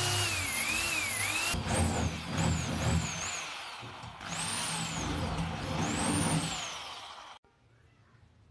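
Electric hand drill boring through a metal bed-frame tube, a loud whine whose pitch rises and falls as the motor speed changes. It drills one hole, dips briefly about four seconds in, drills a second, and cuts off abruptly near the end.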